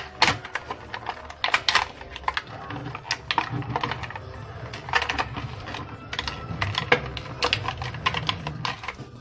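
Stiff clear plastic blister pack crackling and clicking in irregular sharp snaps as it is cut and pried off its card with a small knife.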